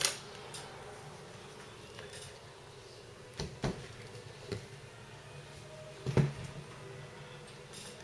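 A few sharp clicks and knocks of objects being handled, spaced irregularly, the loudest about six seconds in, over a steady low hum.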